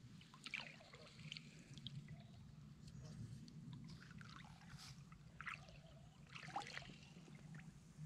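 Faint trickling and small splashes of water as fly line is stripped and the rod tip is worked in the water beside a boat. A faint steady low hum sits under it.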